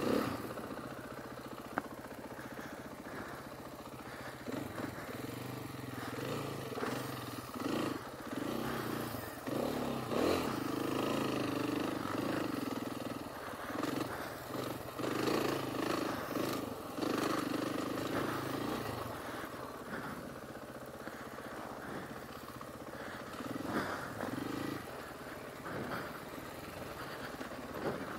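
Dirt bike engine running as the bike is ridden along a rough trail, revs rising and falling with the throttle and strongest in the middle stretch, with frequent knocks and rattles as it goes over bumps.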